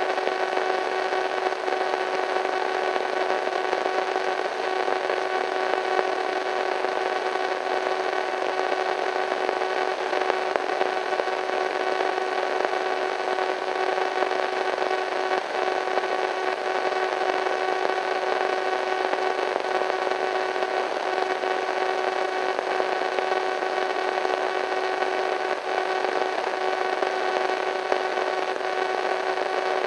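Radio static: a steady hiss with a few faint steady tones humming through it, unbroken throughout.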